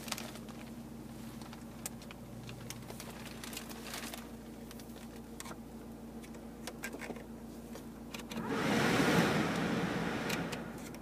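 Vauxhall Zafira's heater blower fan turned up with the fan-speed dial, a rush of air that swells about eight seconds in and dies away about two seconds later. Underneath is the steady hum of the idling engine and a few light clicks from the dashboard controls.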